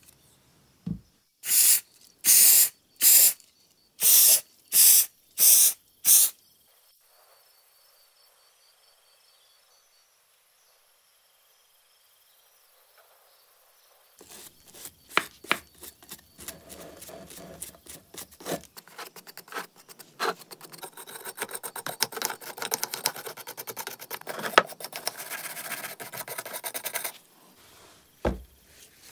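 About seven short hissing sprays in quick succession. After a pause comes a long stretch of brisk scrubbing and scraping as lifted, bubbled paint is worked off an aluminium chainsaw crankcase, ending with a single low knock.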